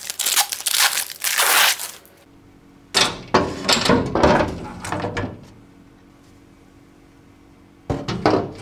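Clear acrylic corner shelves being handled and fitted into a cabinet: plastic knocking, rattling and scraping against the pegboard panels, in three bouts with a quiet lull in the middle.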